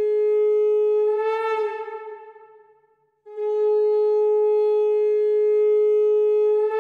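Conch shell (shankha) blown in long, steady blasts on one note. The first swells and dies away a second or two in, and a second blast starts about three seconds in and swells again near the end.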